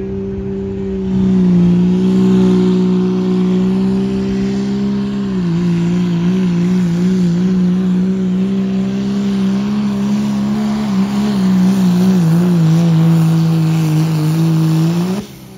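Second-generation Dodge Ram's 5.9 Cummins diesel pulling a sled at full throttle. The engine note gets louder about a second in, drops in pitch about five seconds in as the load builds, wavers up and down, and then cuts off suddenly near the end of the pull.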